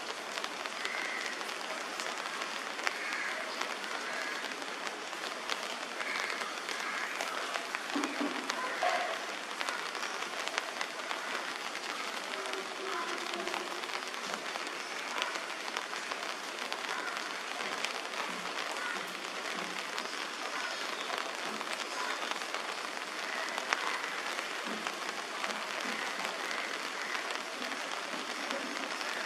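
Rain and water drops falling on wet leaves and branches: a steady patter made of many small ticks.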